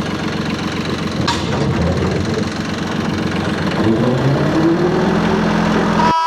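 Tractor engine running, then throttled up about four seconds in, its pitch rising as it comes up to working speed for the brush hog; it cuts off abruptly near the end.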